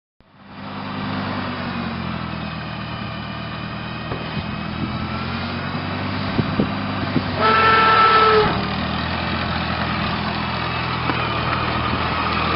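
An engine running steadily, with one short, steady pitched tone of about a second, about halfway through.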